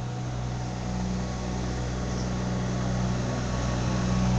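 Steady low mechanical hum, like a running engine or machine, growing slowly louder.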